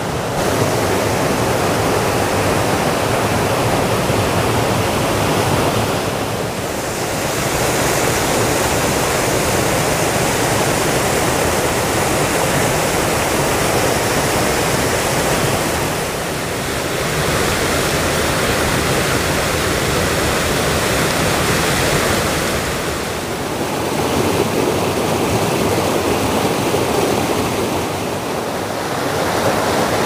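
Stream water rushing and splashing over rocks in a small cascade: a steady, loud rush that dips briefly a few times.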